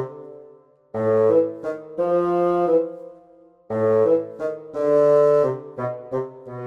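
Electronic sound from the DX Blizzardsorbei Gochizo toy's speaker: a short brass-style jingle played twice. Each phrase dies away into a brief gap before the next one starts.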